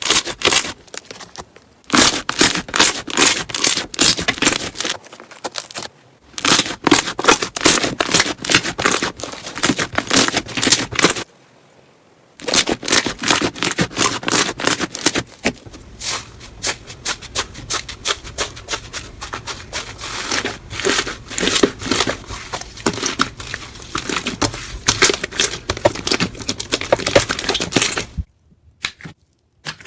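Slime being squeezed, poked and stretched by hand, making rapid wet crackling and popping sounds in several separate takes, with short breaks between them.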